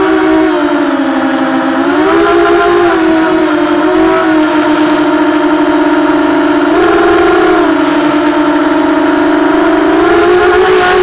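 EMAX RS2206 2300KV brushless motors spinning propellers in flight: a loud, steady buzzing whine whose pitch steps up and back down a few times as the throttle changes.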